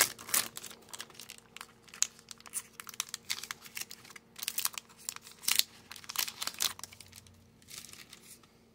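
Foil trading-card pack wrapper crinkling and tearing as it is pulled open by hand: a rapid, irregular crackle that thins out near the end.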